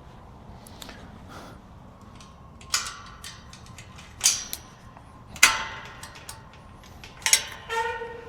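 Five sharp clanks as chicken scratch is got out and served, several ringing briefly. The last one, near the end, leaves a steady ringing tone that hangs on.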